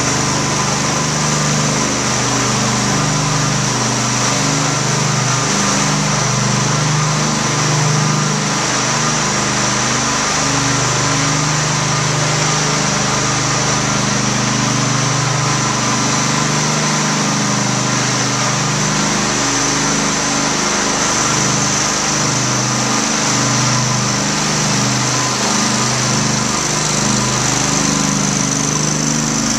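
Walk-behind high-speed floor burnisher running steadily: its small engine hums with a drone that wavers slightly, and its spinning pad hisses over the tile floor.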